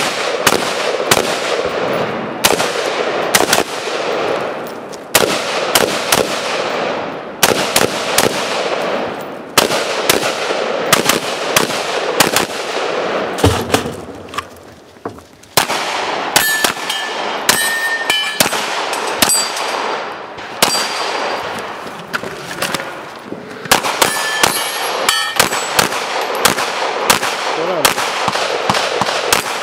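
Gunfire in fast strings of shots, first from a rifle, then after a short pause about halfway through from a pistol. Steel targets ring with a metallic clang when hit.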